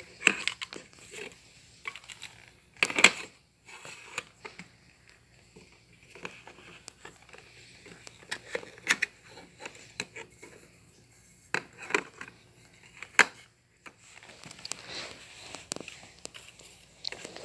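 Small plastic toy dog house pieces being handled and set down, with scattered sharp clicks and knocks and some crinkling of plastic packaging. The loudest knocks come about three seconds in and twice near the thirteen-second mark.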